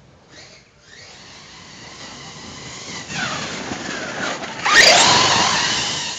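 Hobao Hyper ST Pro RC truck's brushless electric motor whining as it drives past over grass. It grows louder as it approaches, is loudest as it passes close about five seconds in, with the whine falling in pitch, then fades as it drives away.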